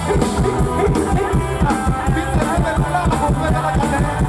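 Mor lam band music played live through a PA: a steady drum beat under melodic instrument lines, with no clear singing.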